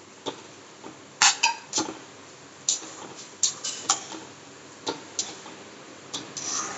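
Steel spoon scraping and knocking against a non-stick kadai while chopped onions are stirred in oil: a string of short, irregular clicks and scrapes, the loudest a little after a second in.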